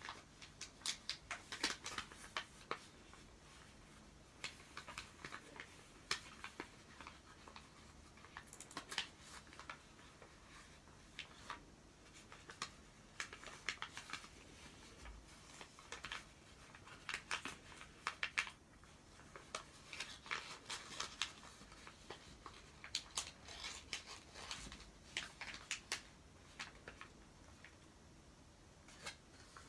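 Origami paper crinkling and rustling as it is folded by hand into a masu box: irregular clusters of short, soft crackles as the creases are pressed and the flaps worked.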